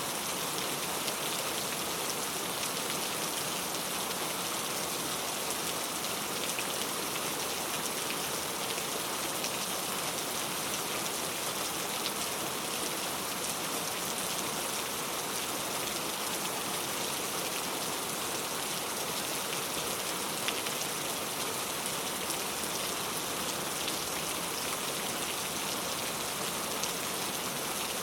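Very heavy rain falling steadily, a dense even hiss of drops on a surface with many small drop ticks.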